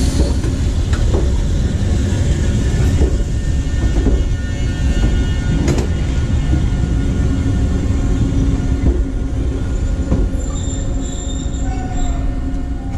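Eizan Railway 800-series electric train running past and pulling away: a steady low rumble with the wheels clicking over rail joints about once a second, and a brief high wheel squeal near the end.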